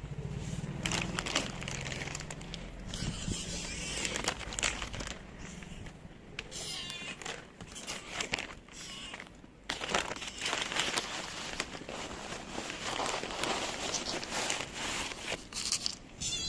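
Plastic packaging crinkling and rustling in irregular bursts, with scattered clicks.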